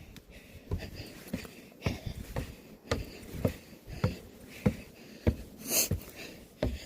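Footsteps climbing a long flight of stairs, a thud about every half second, with a person's heavy breathing and one loud breath near the end.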